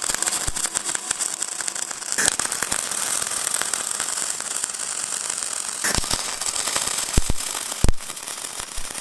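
MIG welding arc on aluminium, run with pure argon shielding gas: a steady, dense crackling hiss with spatter. There are short breaks about two and six seconds in, and a few sharp pops near the end.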